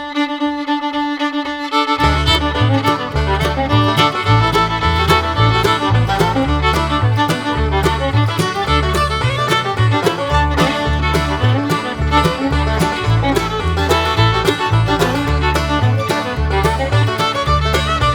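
Background music: an upbeat fiddle-led bluegrass-style tune, with a bass line and steady beat coming in about two seconds in.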